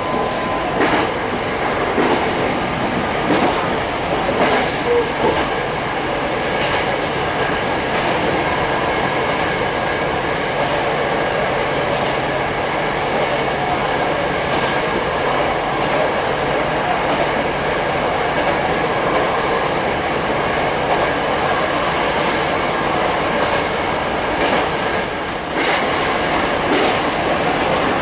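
Kitakinki Tango Railway diesel railcar running steadily, heard from inside the passenger car: a continuous rumble of wheels on rail. A few clicks over rail joints come in the first few seconds and again near the end.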